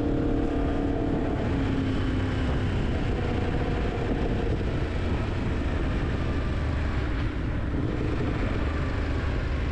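Yamaha MT-10's crossplane inline-four engine running as the bike is ridden, mixed with a steady rush of noise. A low engine note stands out in the first few seconds, then sinks into the even noise.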